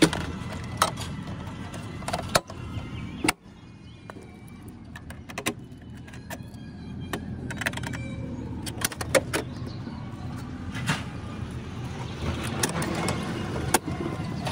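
Aluminium motorcycle side case being handled: its metal latches and lid clicking and clacking open, a string of separate sharp clicks and knocks over a low steady background rumble.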